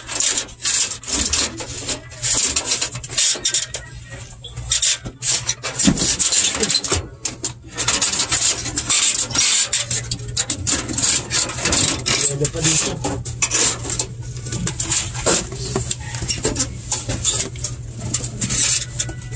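Irregular scraping and rubbing as a long defrost heater element is worked out from behind a commercial freezer's evaporator, dragging against sheet metal and foil. A steady low hum runs underneath.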